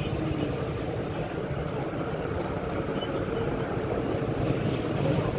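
Steady low background rumble with no single event standing out.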